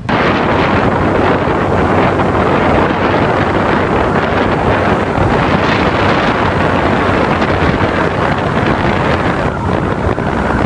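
Loud wind buffeting the microphone of a moving vehicle, with the vehicle's steady low rumble underneath.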